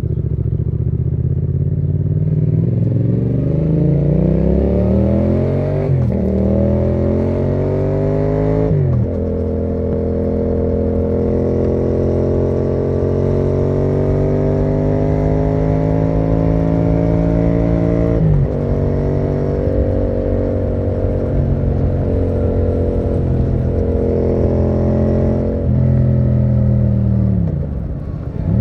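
Yamaha MT-07's 689 cc parallel-twin engine through a Termignoni exhaust, accelerating through the gears: the pitch climbs, then drops sharply at upshifts about six, nine and eighteen seconds in. Near the end the revs fall away steadily as the bike slows.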